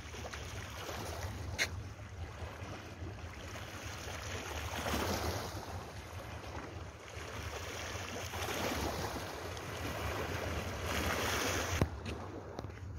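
Wind blowing across a phone's microphone by the sea, in gusts that swell and fade over a steady low rumble, with a couple of sharp clicks, the last just before the end.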